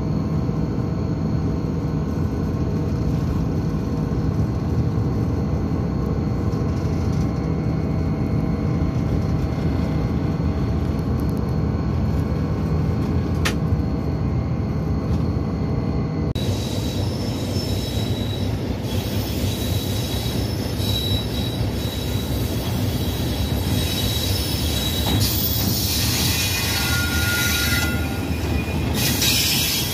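Pakistan Railways diesel-electric locomotives running: for about the first 16 seconds a steady, low engine drone. Then the sound changes abruptly to a broader rail-yard hiss with short high-pitched squeals.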